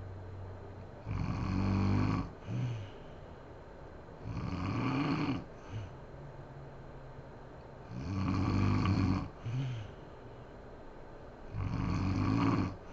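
A sleeping woman snoring in a regular rhythm: four snores about three and a half seconds apart, each followed by a brief second snort.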